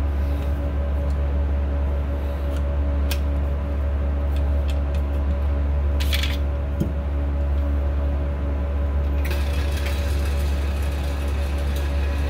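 Steady low machine hum with a few light clicks. About nine seconds in, a shooting range's electric target carrier starts running, adding a rattling hiss as it carries the paper target downrange.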